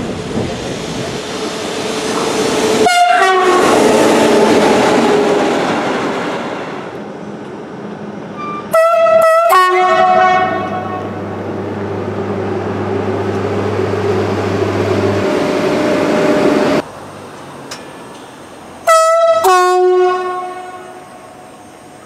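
SNCF train horns sounding in several separate takes, each blast dropping from a high note to a low one. One blast comes about three seconds in over the rumble of a train rolling on the track, two short blasts about nine seconds in, and two more about nineteen seconds in.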